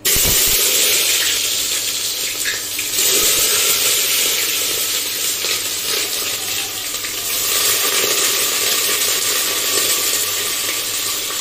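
Chopped onions and bay leaf dropped into hot oil in a pressure cooker: a sudden loud sizzle that goes on as steady frying.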